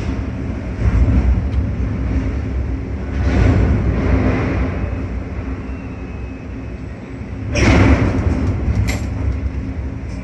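Ship-to-shore container crane's machinery heard from the operator's cab as the spreader lowers a container: a steady low rumble with a constant electric hum, swelling a few times and loudest in a brief rushing surge about eight seconds in.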